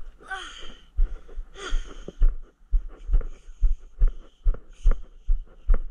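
Footsteps on wooden decking, a steady walking rhythm of about two dull thuds a second starting about a second in.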